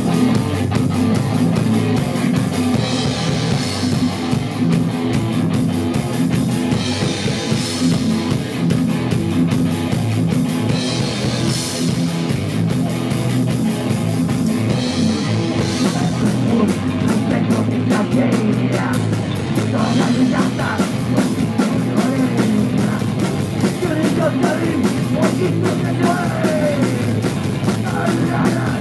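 Live punk rock band playing at full volume: distorted electric guitar and bass over a drum kit, with cymbal crashes every few seconds and a run of fast drum hits from about halfway through.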